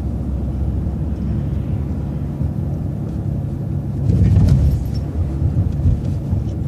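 City transit bus running under way, a steady low rumble of engine and road noise heard from inside the bus, swelling louder about four seconds in.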